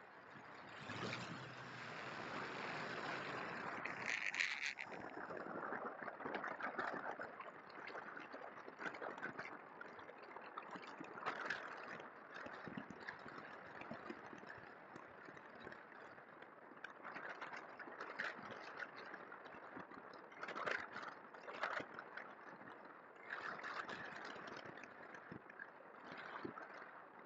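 Airflow rushing over a radio-controlled model Cessna 150 in flight, heard as uneven wind noise on its onboard camera that swells and dips every second or two.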